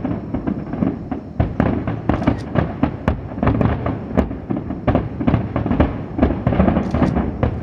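Aerial fireworks shells bursting in a rapid, unbroken barrage: a dense, irregular run of sharp bangs and crackles, several a second.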